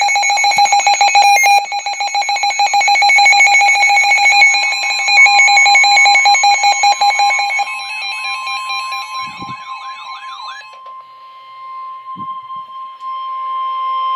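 Weather alert radio going off for a severe thunderstorm warning: a loud, rapidly pulsing electronic alarm beep, which turns into a warbling tone about eight seconds in. Under it and then alone, the steady single-pitch NOAA Weather Radio warning tone sounds until the voice message begins.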